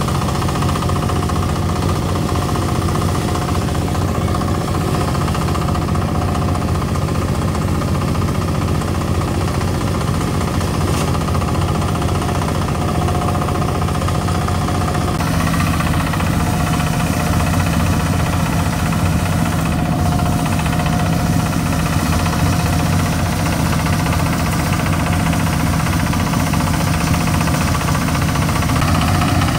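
An engine running steadily; its tone shifts a little about halfway through.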